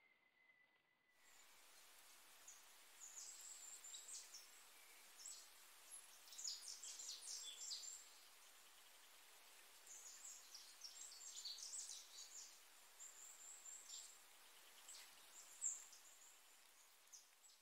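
Faint, high-pitched bird chirps in irregular clusters over a steady hiss.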